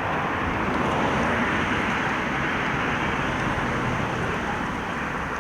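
Car driving on a road: steady tyre and engine noise that swells slightly about a second in.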